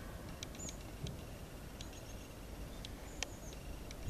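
Faint high-pitched chirps of small birds, short calls repeating every second or so, with a few soft clicks in between.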